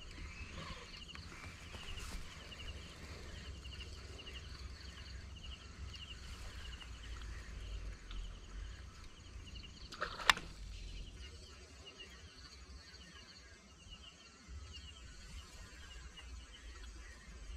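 Outdoor ambience of wind rumbling on the microphone, with a chirp repeated over and over, about two a second. A single sharp click comes about ten seconds in.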